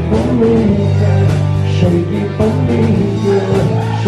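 Live rock band playing: electric guitars, bass and drums with regular hits, and a voice singing.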